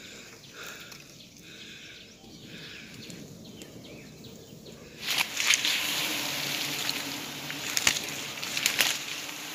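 Giant honey bee colony buzzing: a dense, steady hum that starts abruptly about halfway through, with a few sharp clicks over it. Before that, only faint outdoor background.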